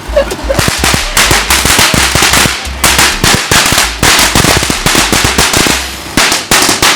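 Firecrackers going off in rapid succession: a loud, dense run of sharp cracks and pops, a few every second, that thins out and stops near the end.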